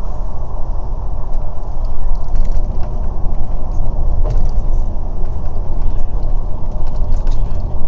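Steady low rumble of a moving bus, engine and road noise heard from inside, with a few light rattles and clicks from the bus's fittings.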